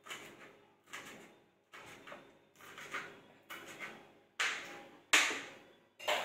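Kitchen knife slicing a green chilli on a plastic chopping board: a steady series of cuts, each a sharp chop on the board with a short scraping tail, somewhat under two a second. The last few cuts are louder.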